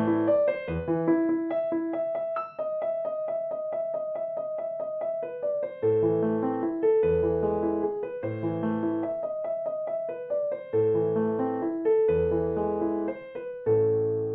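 Background piano music: a melody over repeated quick notes, with bass chords coming in about six seconds in and a final chord ringing out and fading near the end.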